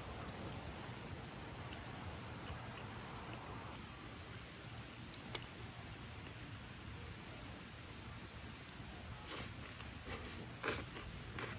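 An insect chirping faintly in even pulses, about three a second, in runs with short gaps, over a soft outdoor hush. A single sharp click about five seconds in, and a few faint knocks near the end.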